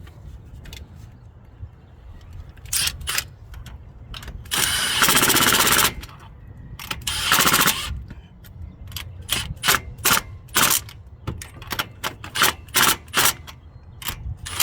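Cordless power tool running the bolts of a high-pressure fuel pump down on a Ford Coyote V8: two long bursts with a fast rattle, then many short blips of the same tool.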